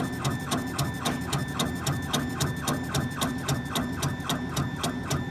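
Laser engraver at work, its head shuttling back and forth over a Zippo lighter: a steady motor whine with about five clicks a second as it reverses at the end of each pass of the engraving.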